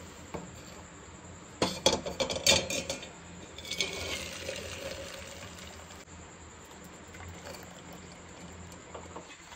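Boiled sweet corn kernels and their cooking water poured from a metal pot into a wire mesh strainer: a few sharp clinks of metal on metal, then water splashing and draining for a couple of seconds before it fades.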